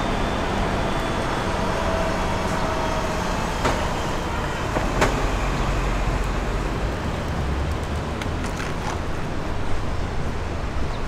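Road traffic at a city intersection: a steady noise of cars and buses driving past, with two short sharp knocks about four and five seconds in.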